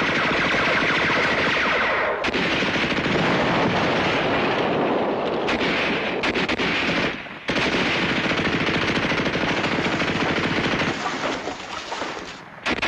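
Sustained machine-gun fire mixed with rifle shots from a WWII battle scene, a dense, continuous rattle. It breaks off briefly about two seconds and seven seconds in, thins out near the end, then comes back loud at the very end.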